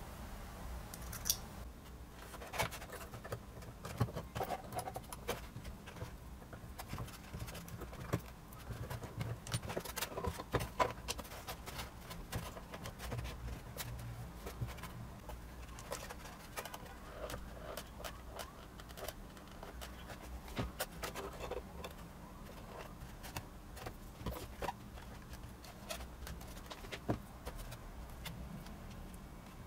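Irregular small clicks, taps and rubbing from hands fitting a brass coupler onto a small brushed DC motor and seating the motor and its propeller shaft in a foam boat hull, over a low steady hum.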